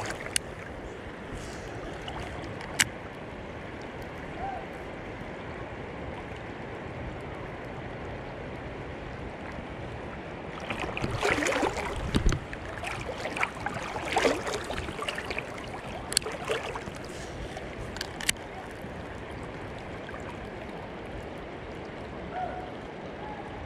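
Shallow river water running steadily around rocks and the wader's legs, with a stretch of splashing and sloshing about halfway through and a few sharp clicks.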